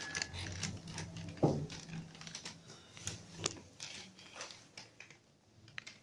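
Shanghai Mitsubishi elevator car's floor buttons being pressed, with irregular clicks and light knocks and a short beep right at the start. The sounds grow fainter toward the end.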